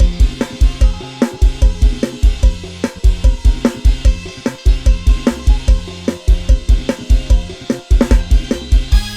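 Instrumental backing track of a programmed drum kit (Addictive Drums 2) and sampled bass guitar playing a Thai Isan procession (hae) groove. Steady kick drum beats, about two to three a second, with snare, hi-hat and cymbals over a bass line.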